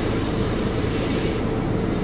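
Volvo D7E six-cylinder diesel engine of a 2009 Volvo 8700LE bus running steadily under way, with a steady whine over the rumble and a brief hiss about a second in.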